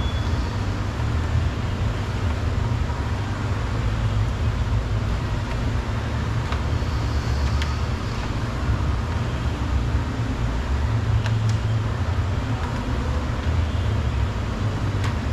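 Steady low rumble of workshop background noise, with a few sharp clicks as plastic push clips are pried out of the bumper's top section.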